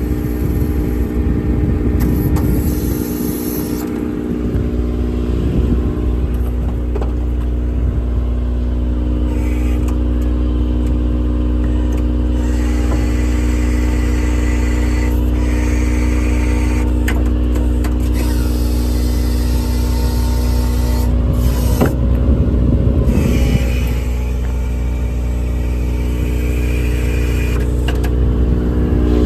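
A vehicle engine running steadily at idle, with brief rustling and handling noises over it about two seconds in and again around twenty-two seconds in.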